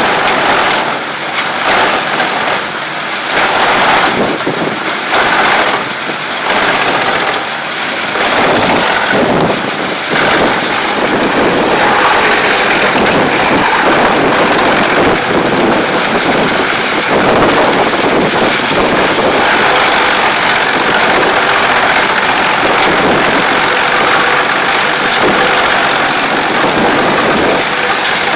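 Large wood chipper running loudly, a dense mechanical noise that rises and dips unevenly for about the first ten seconds, then holds steady.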